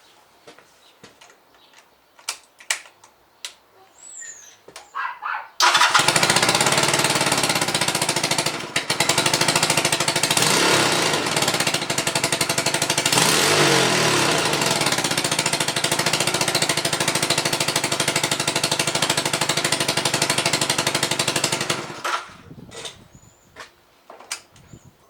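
A few light clicks, then the Honda Rebel 250 clone motorcycle engine being turned over by its electric starter: a loud, fast rattle that starts suddenly about five and a half seconds in, runs steadily for about sixteen seconds and cuts off. This is the bad cranking noise from a starter that does not engage properly.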